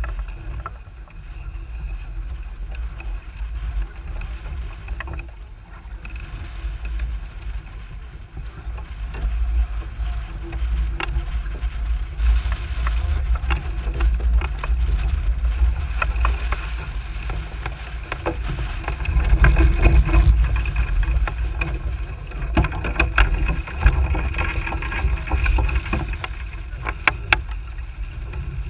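Wind rumbling on the microphone and water splashing against the hull of a small sailboat under sail, with scattered knocks and clicks. It grows louder about nine seconds in.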